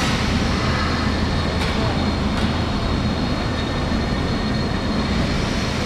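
Steady low mechanical rumble and hum of a heavy-industry workshop as an overhead crane lifts and turns a large rolled steel shell section, with a faint steady high whine and a couple of faint ticks.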